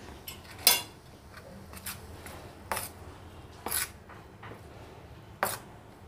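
Steel spoon scraping and clinking against a stainless steel plate while stirring oil into flour: four sharp scrapes at irregular intervals, with softer scraping between.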